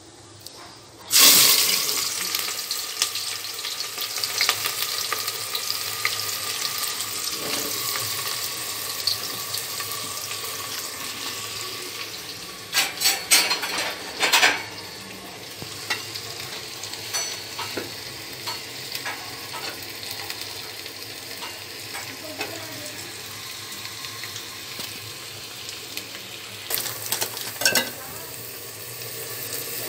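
Chopped onions hitting hot oil and spices in a pot, a sudden loud sizzle about a second in that settles into steady frying. A metal spoon stirring clinks against the pot a few times around halfway and again near the end.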